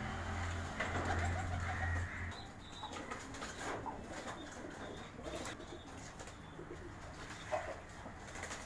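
Homing pigeons bathing in a shallow basin of water, splashing and flapping their wings, with pigeons cooing in the background. A sharp click near the end.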